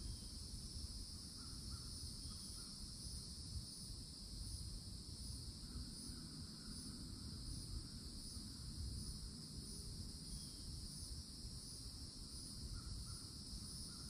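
Steady, high-pitched drone of cicadas, with a faint even pulsing in the upper part of the whine. A few faint bird calls come in about a second and a half in, around the middle and near the end.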